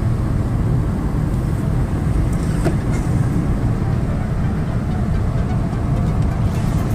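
Steady low rumble of a Ford Expedition on the move, heard from inside the cabin: its 4.6 V8 and tyres running smoothly, with no jerking misfire now that new coil packs are fitted.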